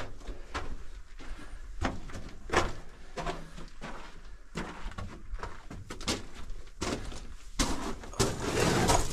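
Footsteps crunching and shuffling on loose gravel and rock in a narrow mine tunnel, with clothing and gear scraping, in an uneven run of short crunches that thickens near the end.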